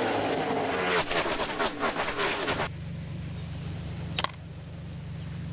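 A pack of stock cars racing past on an oval, engines running with falling pitch and a quick run of cars rushing by. About two and a half seconds in this cuts off, leaving a low steady hum with a single sharp click a little later.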